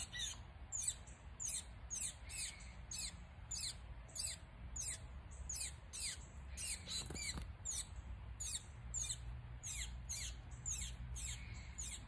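A small songbird calling steadily: short high chip notes that slide down in pitch, about two or three a second.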